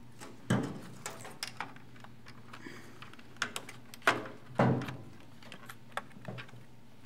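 Scattered light clicks, taps and clatters of hand disassembly: a screwdriver working and small plastic and metal projector parts being handled on a steel workbench, with a few louder knocks about half a second in and around four seconds.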